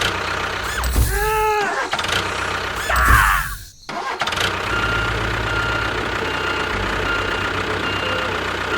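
An engine starting up, then running steadily. Brief swooping, voice-like sounds come in the first few seconds. A faint beep repeats over the running engine.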